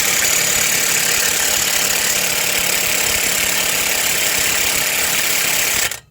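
A 1/2 inch impact wrench running steadily for about six seconds on an 18 mm wheel hub bolt through an extension, then stopping abruptly. The bolt does not break loose, so a bigger wrench is needed.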